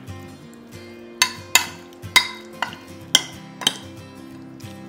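Metal spoon clinking against a glass dish while stirring chicken pieces in a marinade: about six sharp clinks, starting about a second in.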